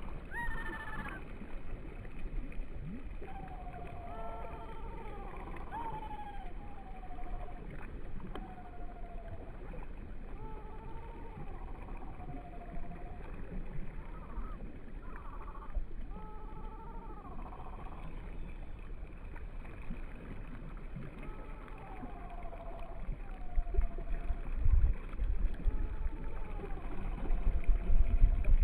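Birds calling: about a dozen drawn-out, falling calls at irregular intervals, over a steady low rumble that grows louder near the end.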